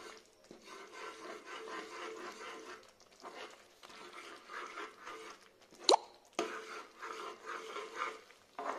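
Spatula stirring and scraping a thick mix of mashed potato, flour and sauce in a pan, a run of uneven rubbing strokes, with one sharp click about six seconds in.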